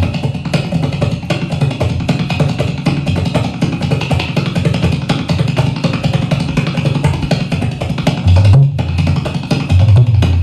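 Tabla played fast to imitate a running train: a dense, rapid patter of strokes giving the wheels' rhythm, with deep booming bass-drum (bayan) strokes at the start and again near the end, and a short break late on.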